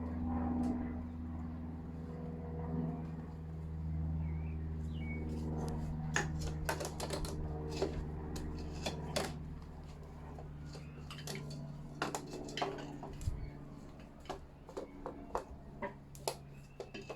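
Metal tools and parts clinking and knocking against each other in irregular sharp strikes, with quick runs of clicks in the second half, over a steady low hum.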